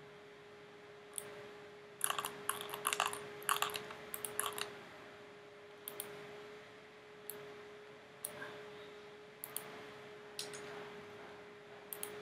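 Computer mouse and keyboard clicks: a quick run of clicks a couple of seconds in, then single clicks about once a second, over a steady faint hum.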